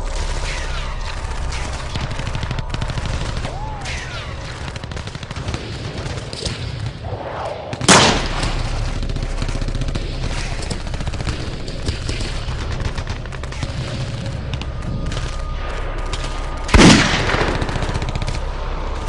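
Gunfire sound effects: a steady bed of ongoing gunfire with a few falling ricochet whines in the first few seconds, then two loud single gunshots, about 8 and 17 seconds in.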